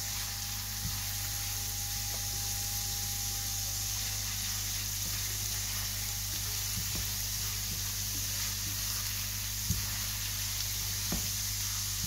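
Chopped garlic, ginger and whole spices sizzling steadily in coconut oil in a non-stick frying pan, sweated gently so they release their oils without colouring. Soft scrapes and ticks of a spatula stirring them run over a steady low hum, with one sharper tap near the end.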